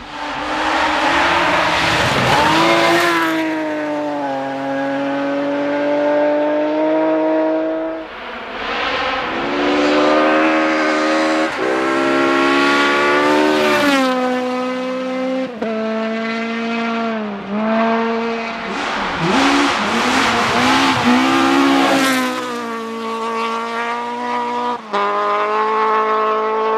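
Rally car engines at full throttle on a closed test stage, revving up and dropping sharply in pitch again and again as gears change and the throttle lifts, loud throughout.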